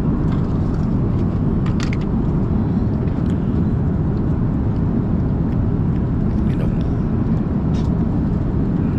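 Steady low rumble of airliner cabin noise, the engine and airflow drone heard from a passenger seat, with a couple of faint clicks.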